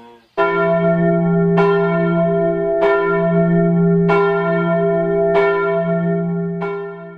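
A single church bell tolling, struck six times at an even pace of about one stroke every second and a quarter, each stroke ringing on into the next. The ringing cuts off abruptly near the end.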